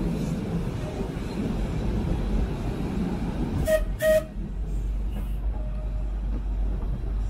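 Open-top heritage electric tram running along its rails with a steady low rumble, its warning gong ringing twice in quick succession a little over halfway through.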